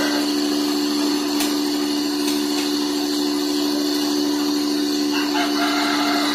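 Gas-heated cotton candy machine running: the spinner head's motor gives a steady hum over an even hiss. Two faint ticks come about a second and a half and two seconds in.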